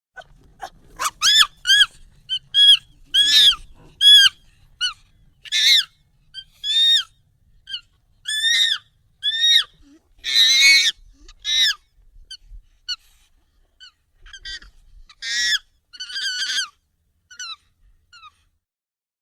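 Monkey calls, sped up and pitched up: a rapid, irregular series of short, high, arching calls that thins out near the end.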